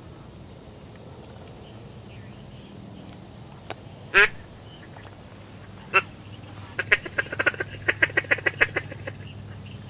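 Hand-held duck call blown to imitate quacking. One loud drawn-out quack comes about four seconds in and a short one at six seconds, then a rapid run of about a dozen quacks, roughly six a second, meant to lure flying ducks in.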